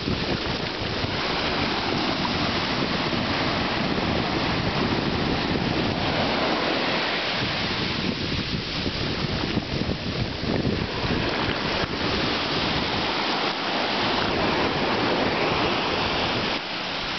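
Ocean surf washing up over the sand at the water's edge, a continuous rush of breaking waves and fizzing foam that swells and eases, with wind buffeting the microphone.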